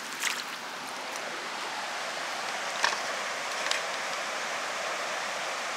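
Steady rushing of a fast-flowing creek and nearby waterfalls, with a few faint clicks.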